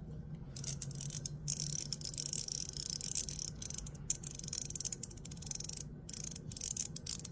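Dense, rapid small clicking and ticking from a metal magnetic haptic-coin fidget toy being handled, with short pauses.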